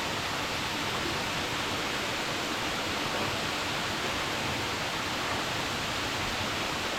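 Waterfall pouring into a pool, a steady, even rush of falling water.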